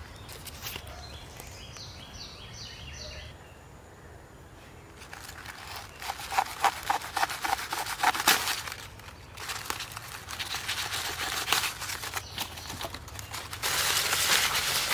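Fresh green leaves and stems being handled: a stretch of quick crackling and snapping as a knife cuts through a leafy stem about six seconds in, then loud crinkling and rustling near the end as leaves are folded into a parcel.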